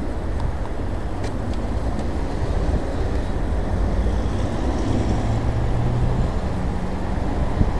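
Steady road and wind noise from riding through city traffic, with a vehicle engine's low hum standing out for a couple of seconds after the middle.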